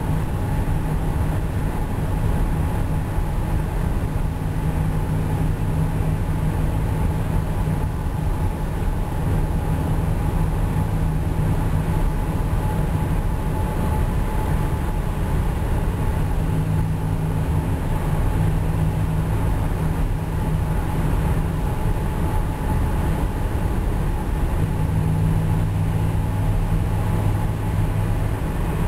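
Car driving on a highway: a steady low drone from its Flowmaster exhaust over rolling road noise from Yokohama Avid tires, the low drone swelling and easing every few seconds.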